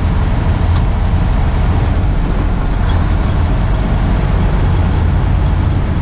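Semi truck's diesel engine and road noise heard inside the cab while driving: a steady low drone.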